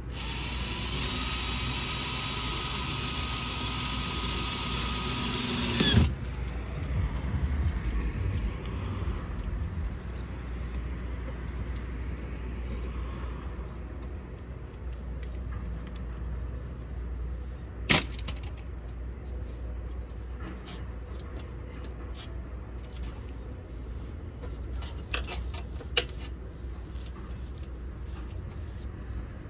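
A power drill runs steadily for about six seconds and stops abruptly. Over a low background rumble, a couple of sharp clicks follow later.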